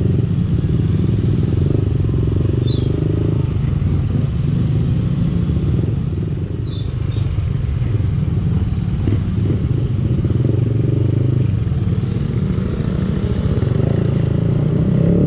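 Motorcycle riding along, its engine running steadily as a dense low rumble.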